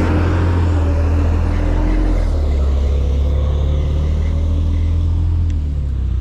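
Loud, steady low rumble and droning hum of a truck engine close by, the drone shifting slightly in pitch about two seconds in.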